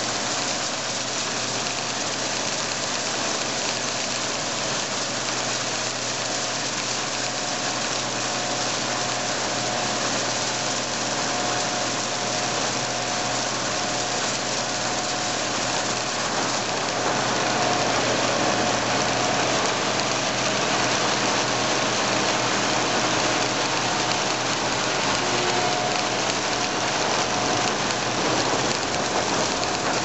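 Case IH combine harvester running while cutting soybeans, heard from inside the cab: a steady dense rushing hiss of the machine with a faint steady whine. It gets a little louder about halfway through.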